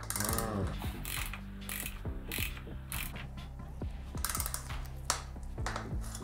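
Ratchet wrench clicking in repeated runs of quick clicks as it tightens a fitting on the bicycle suspension fork during reassembly.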